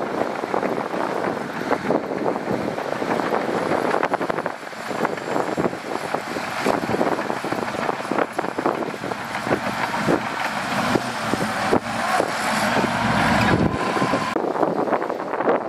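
Heavy earthmoving machinery working, a steady mechanical noise full of short rattles and clanks. A deeper engine rumble swells about twelve seconds in and drops away about two seconds later.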